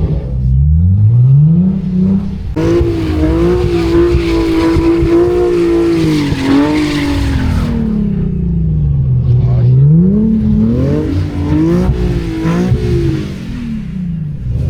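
BMW M3 Competition's twin-turbo inline-six revving hard as the car slides in snow. The engine climbs, holds high and wavers for several seconds under a rushing noise from the spinning tyres, falls away, then climbs again twice.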